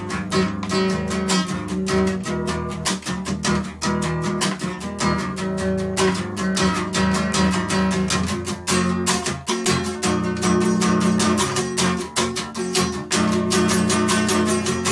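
Nylon-string classical guitar strummed in a steady rhythm, a quick run of strokes several times a second over sustained chords.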